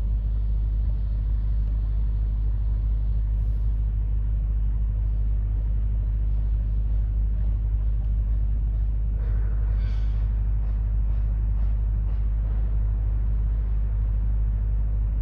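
Steady low rumble of a tracked excavator's diesel engine running, with faint knocking and clatter of rubble from about nine to thirteen seconds in.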